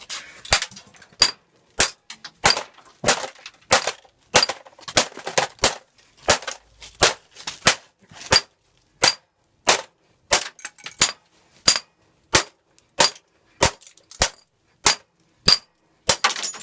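About two dozen sharp blows in a steady rhythm, a little under two a second, as a brass putter is struck again and again against a laptop's plastic case around the speakers.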